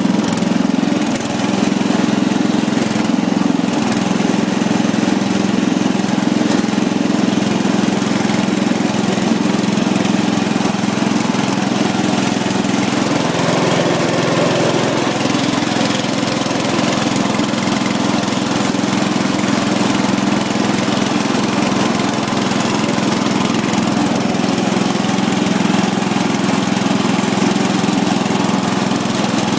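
Riding lawn mower's engine running steadily under way, with a brief dip in loudness about a second in.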